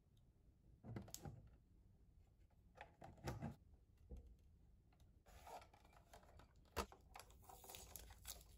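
Faint clicks and taps of hard plastic parts being handled and fitted onto a toy record maker's plastic casing, with the sharpest click about seven seconds in.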